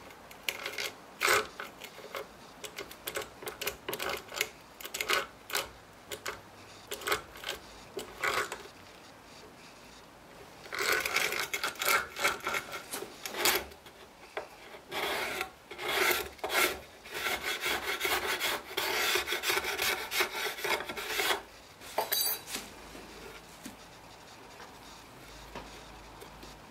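Hand tool scraping and rubbing on a pine board's edge: separate short strokes at first, then a long run of quick rubbing strokes that stops a little after twenty seconds.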